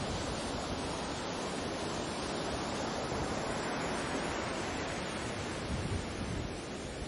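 Sea surf rushing steadily, with a low, uneven rumble of wind on the microphone.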